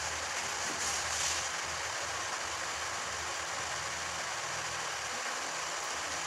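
Steady background noise: an even hiss with a low hum underneath, unchanging throughout.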